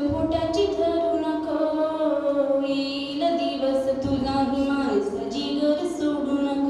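A young girl singing solo into a handheld microphone, drawing out long held notes that slide from pitch to pitch.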